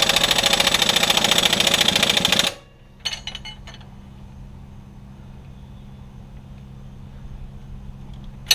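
Impact wrench hammering hard on a seized bolt, stopping about two and a half seconds in, followed by a few metal clicks and rattles. A steady low hum runs underneath.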